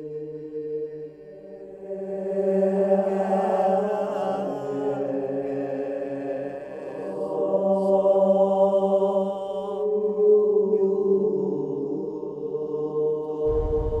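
Soundtrack music of layered, sustained droning tones that overlap and shift slowly, with a deep low rumble coming in near the end.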